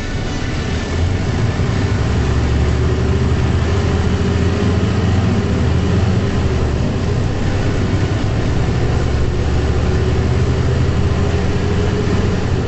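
Mercedes-Benz O405 city bus's diesel engine running under way, heard from inside the passenger cabin: a deep, steady drone that grows louder about a second in and then holds.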